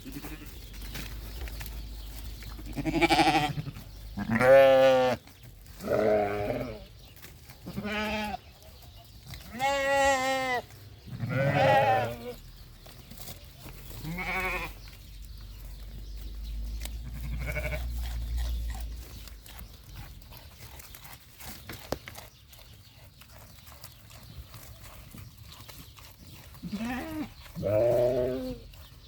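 Goats and sheep bleating, about ten wavering calls at irregular intervals, with a lull of several seconds before two last calls near the end.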